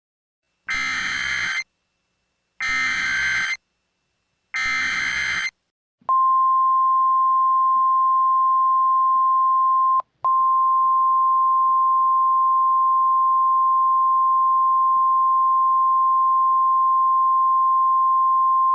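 Emergency Alert System SAME header: three separate buzzy digital data bursts, each about a second long. They are followed, after a short pause, by the NOAA Weather Radio 1050 Hz warning alarm, a single loud steady tone with one brief drop about four seconds after it starts. This sequence signals the start of a new weather warning broadcast.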